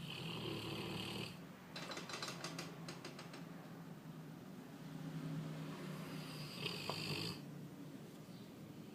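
Sleeping Labrador Retriever snoring: two long snores about five seconds apart, with a fluttering rattle between them.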